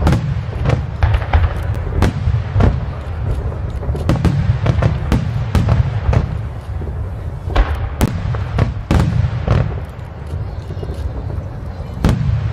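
Fireworks display: aerial shells bursting in quick succession, many sharp bangs a few per second over a steady low rumble.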